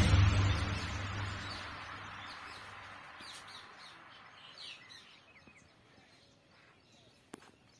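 The tail of a devotional song dying away over the first few seconds, then faint outdoor ambience with a few small birds chirping and a single click near the end.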